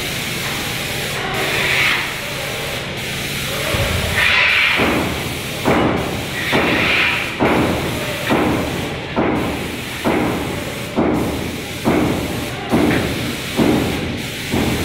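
Airless paint sprayer spraying primer: a steady hiss, and from about five seconds in a regular thump just over once a second from the sprayer's pump stroking.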